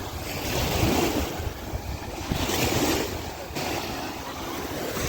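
Wind buffeting the microphone over the rushing wash of sea water, swelling and easing every second or so.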